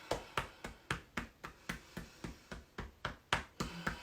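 Hands drumming on the body in qigong self-massage: a steady rhythm of soft pats, about four a second.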